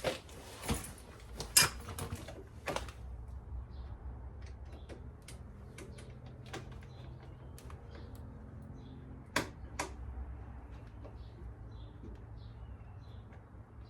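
Scattered sharp clicks and taps of small metal parts and hand tools being handled, loudest about one and a half seconds in and as a pair near the end, over a faint steady low hum.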